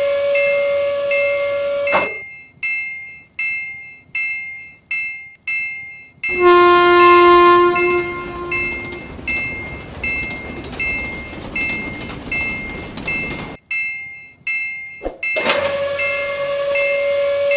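Japanese level-crossing alarm bell dinging about every two-thirds of a second. About six seconds in, a train horn sounds for about a second and a half, followed by the rushing noise of the train passing for about seven seconds, with the bell ringing on throughout. At the start and again near the end, a louder sustained steady tone lies over the bell.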